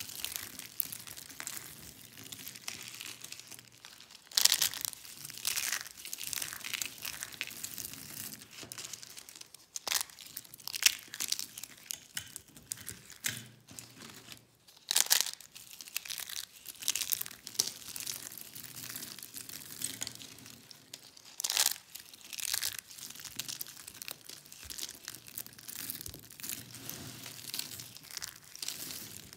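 Dry, brittle soap shards and broken soap bars crunching and crackling as hands squeeze, crumble and rake through a pile of them. A few sharper, louder crunches stand out every several seconds.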